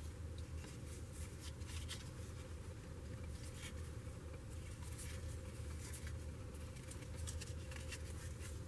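Trading cards being handled and flipped through, giving faint soft rustles and light clicks every second or so over a low steady hum.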